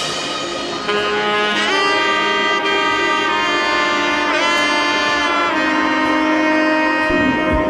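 Background music: a slow melody of long held notes, bending in pitch about two and four and a half seconds in.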